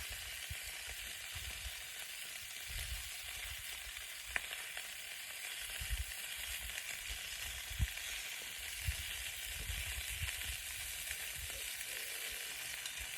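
Sausages sizzling in a camp frying pan: a steady frying hiss, with a couple of sharp pops or clicks along the way.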